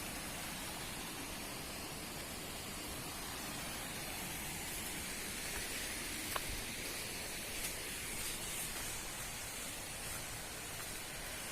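Rushing water from a waterfall and its rocky stream, a steady, even hiss. There is a sharp click about halfway through and a fainter one soon after.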